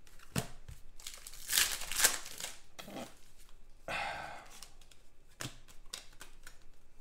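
Trading cards being shuffled and flipped through by hand, sliding and flicking against each other in an irregular rustle. The rustling is loudest between about one and a half and two and a half seconds in.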